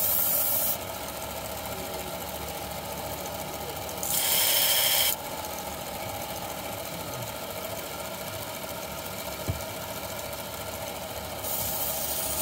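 Belt knife sharpener's motor running steadily, with spells of a knife edge being ground on the abrasive belt heard as a loud hiss: briefly at the start, for about a second around four seconds in, and again near the end.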